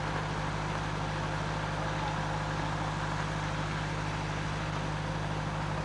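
Steady low mechanical hum, unchanging throughout, with no distinct knocks or changes.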